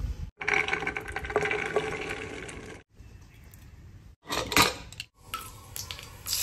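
A run of short cooking sounds cut together. First a stretch of splashing water in an aluminium pressure cooker of soaked chickpeas and black-eyed peas. Then a few sharp metal clinks, the loudest moment, and a faint sizzle of oil in a steel kadai near the end.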